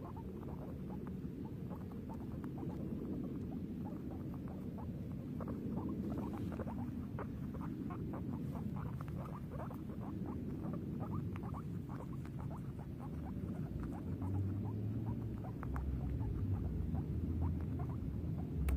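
Guinea pig making many short, quick squeaks, one after another, over a steady low rumble of background noise; a low hum grows louder in the last few seconds.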